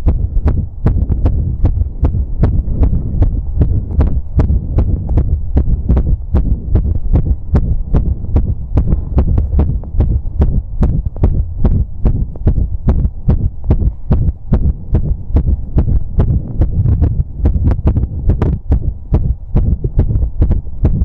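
A man's heartbeat picked up through a stethoscope chest piece strapped over the apex of the heart, regular lub-dub beats coming several times a second, raised after exercise, over a steady low rumble.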